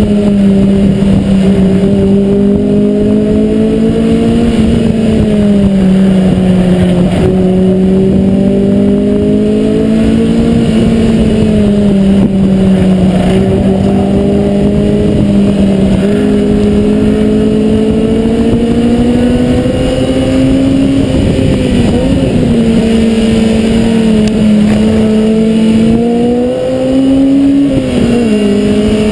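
Mazda MX-5 NB 1.8-litre four-cylinder engine running hard at high revs on track, its pitch rising and falling slowly with the throttle, with a brief dip in level and a jump in pitch near the end.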